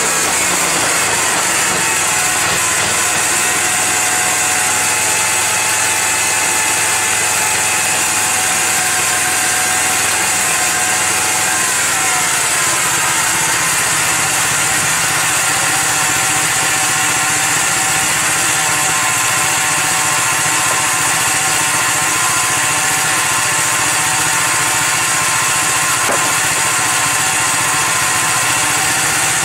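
Engine-driven band sawmill running under load as its 1½-inch Wood-Mizer Double Hard band blade saws through a hemlock log. The engine note drops just after the start and shifts again about twelve seconds in as the load changes, over a steady hiss of cutting.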